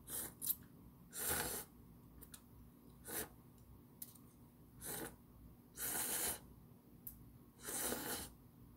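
Ramen noodles being slurped in a series of short, noisy draws, about six in all, with a few small clicks between them.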